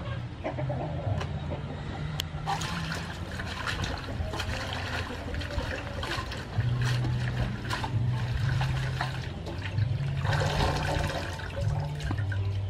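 Hands swishing and lifting leafy greens in a large aluminium basin of water, with splashing and dripping that is busiest a few seconds in and again after about ten seconds. A low steady hum that shifts in pitch now and then runs underneath.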